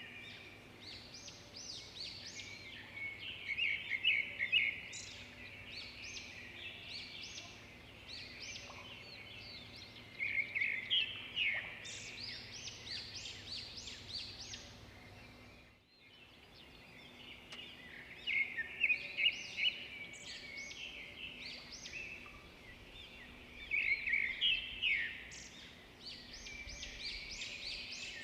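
Small bird singing: bursts of rapid high chirps, one every several seconds, over a faint steady low hum.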